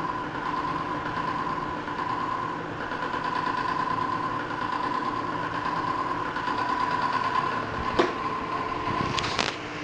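Small electric motor of a facial treatment machine's roller applicator running with a steady whine. There is a sharp click about eight seconds in and a couple more near the end, as the sound drops a little.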